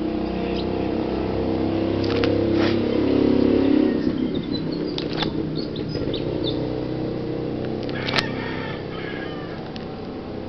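Plastic sleeve pages of a card binder rustling as they are handled and turned, with a few sharp clicks, over a steady low hum.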